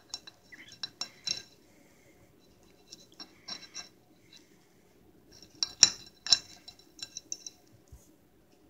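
Metal fork clinking and scraping against a ceramic plate as it cuts through small pancakes, in three short spells of taps, the loudest about six seconds in.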